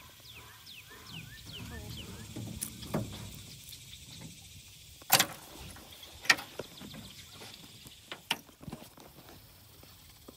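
Several sharp knocks on the aluminium boat, the loudest about halfway through, another a second later and two more close together near the end. A bird's run of quick falling chirps comes near the start.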